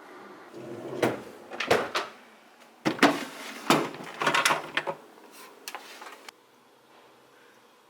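Knocks and clatters of a compressor fridge's door and plastic interior fittings being handled, about half a dozen sharp hits with scraping between them, which stop suddenly a second or two before the end.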